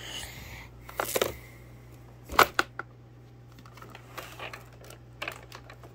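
Handling noises: a rustle and a few knocks and clicks, the loudest about two and a half seconds in, over a low steady hum.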